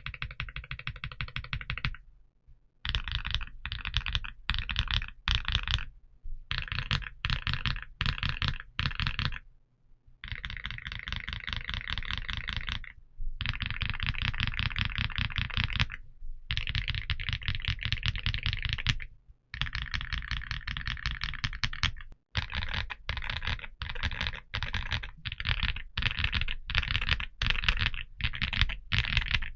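Typing on an XVX M75 mechanical keyboard (Lumina Core Ice Pro): runs of fast keystrokes a few seconds long, separated by brief pauses.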